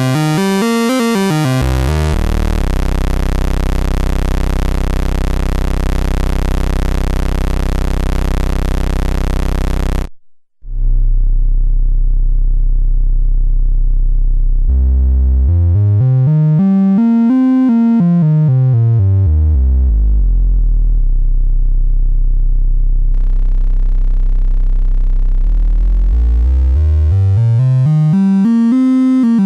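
Raw analog synthesizer oscillator (a 101-VCO Eurorack module) droning on one low note, unfiltered through a discrete-transistor CP3- mixer: a bright, buzzy pulse wave for about ten seconds, cut off briefly, then a softer triangle-like tone. Over the softer tone a bright sweep rises and falls twice while the low pitch stays steady.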